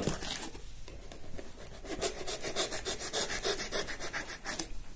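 A knife blade sawing through a cardboard box in quick back-and-forth strokes, a rapid rasping from about two seconds in until just before the end.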